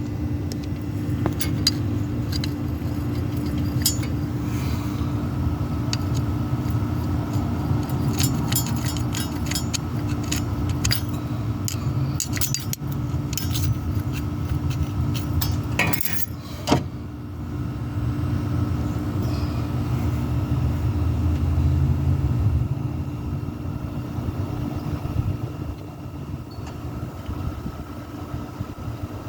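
5.9 Cummins 12-valve inline-six diesel engine running steadily, an engine with an exhaust leak. Irregular sharp metallic clicks and clinks come over it through the first half, and one brief loud noise sounds about sixteen seconds in.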